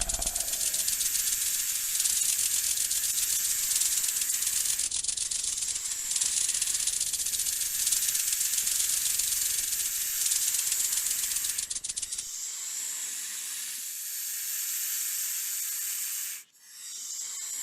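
Rattlesnake-style rattling buzz, fast and high-pitched, in long runs with short breaks, giving way about twelve seconds in to a steady snake-like hiss.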